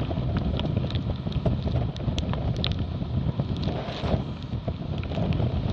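Wind buffeting the microphone of a camera on a Dart 16 catamaran under sail, with water rushing past the hulls. Scattered sharp ticks run through it as spray hits the boat and camera.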